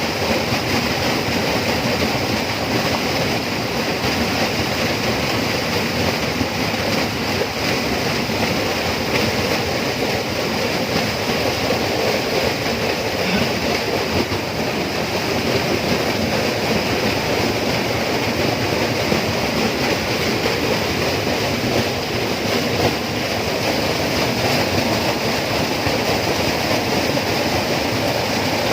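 Steady tropical rainforest ambience: a dense, unbroken wash of noise with no distinct calls or events.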